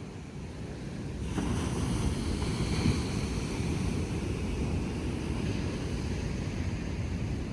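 Wind buffeting the microphone: a steady low rumble that gets louder and brighter about a second in.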